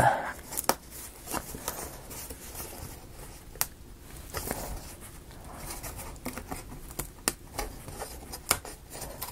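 Thin laser-cut plywood model parts being handled, with scattered light clicks and taps of wood on wood and small rustling between them.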